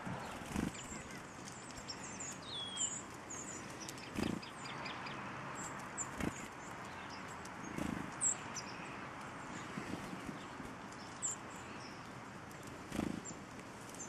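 Small woodland songbirds calling with short, very high chirps scattered throughout, including one brief falling call about three seconds in. Dull low thumps come every few seconds.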